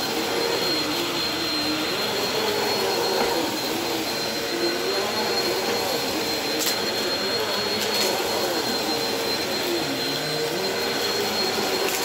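Bagless cyclone vacuum cleaner running over a shag rug, a steady high whine over its airflow noise, the motor's pitch wavering as the head is pushed back and forth. Two or three sharp ticks of grit being sucked up come late on.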